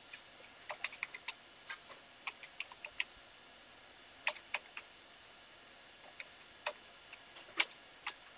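Computer keyboard being typed on: an irregular run of faint key clicks, with pauses of a second or so and the sharpest keystroke near the end.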